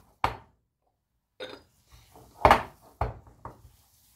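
Hands kneading an oily muhammara paste in a glass bowl: a few short squelching thuds and knocks of hands against paste and bowl, the loudest about two and a half seconds in, with three quicker ones just after.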